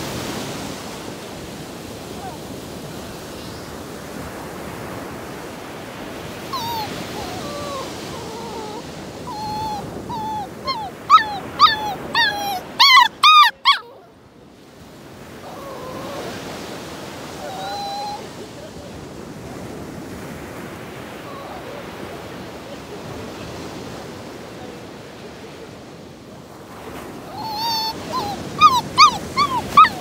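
A dog whining and yelping in runs of short, high-pitched cries that rise and fall in pitch: a long bout about halfway through, loudest near its end, and a shorter bout near the end. Breaking surf washes steadily underneath.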